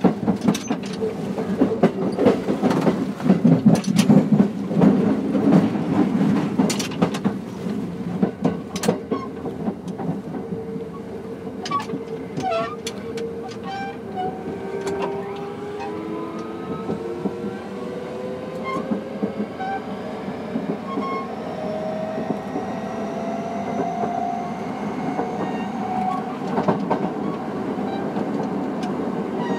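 Kintetsu 3220-series electric train under way: knocks and rumble from the wheels and track in the first several seconds, then from about ten seconds in the traction motors' whine, several tones climbing steadily in pitch as the train picks up speed.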